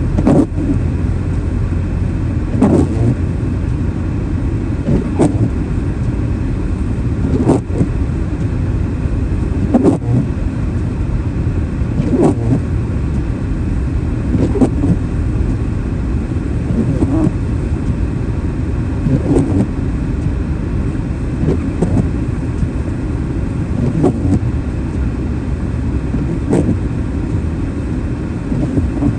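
Car driving, a steady low rumble of engine and road noise, with a short knock repeating about every two and a half seconds.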